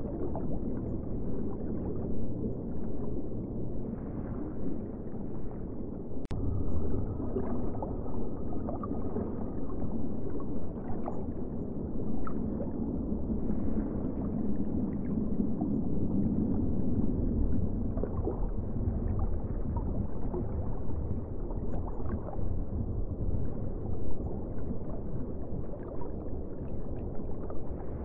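Aquarium water circulating: a steady, low, muffled gurgling rumble with scattered faint clicks and a sharp tick about six seconds in.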